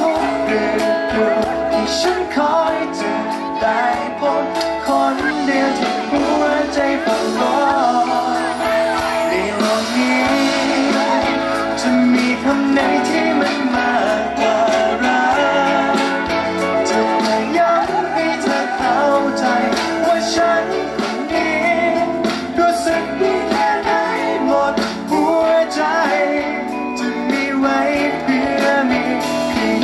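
A live pop band plays a song with electric guitar and bass while a man sings the Thai-language lead vocal into a handheld microphone.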